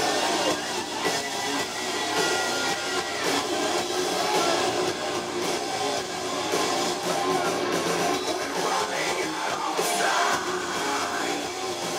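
A heavy metal band playing live, with electric guitars, in a continuous loud full-band passage.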